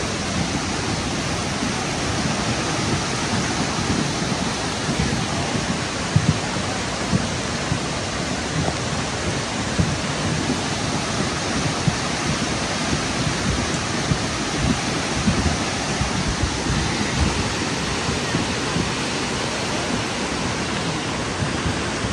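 Flooded river in spate, its muddy torrent rushing past as a loud, steady wash of water noise, with occasional short low thumps.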